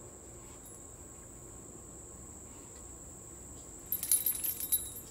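Steady high-pitched drone of insects, with a brief burst of metallic jingling about four seconds in.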